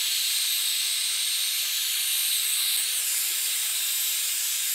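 Small handheld heat gun blowing hot air onto a phone's cracked screen: a steady hiss of rushing air. It is warming the digitizer so it can be separated from the phone's body.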